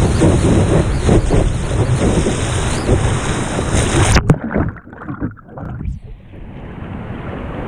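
Surf and wind rushing over a board-mounted action camera as a surfboard rides a wave. A little over four seconds in, the sound turns suddenly muffled as the camera goes underwater. After that comes a softer, duller wash of sea water around the board.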